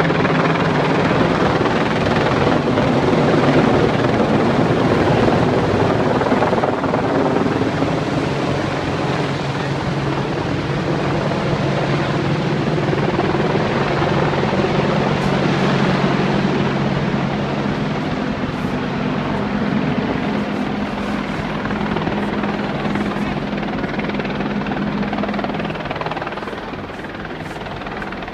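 AH-64 Apache attack helicopter flying low overhead, its rotor and engine noise steady and loud, then fading as it moves away near the end.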